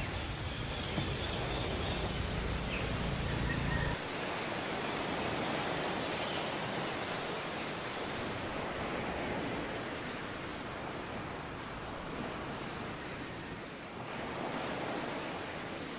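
Steady outdoor background noise, an even hiss without distinct events. A low rumble under it stops abruptly about four seconds in.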